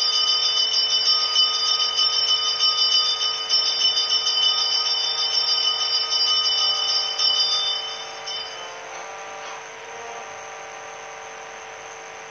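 A bell rung rapidly and continuously, with a shrill, fluttering ring that stops about eight seconds in and then dies away. A steady lower tone holds underneath throughout.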